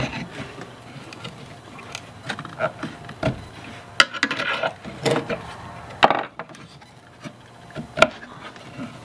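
A screwdriver working back and forth at the rust-seized lever cap of a Stanley transitional plane: crunchy metal-on-metal scraping and grinding, with several sharp clicks, as the rust-stuck parts are forced to free up.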